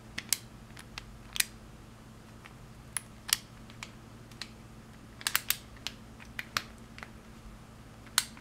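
Irregular light clicks and taps of small metal hand tools, a screwdriver and its bits, being handled and fitted together, including a quick cluster of clicks partway through.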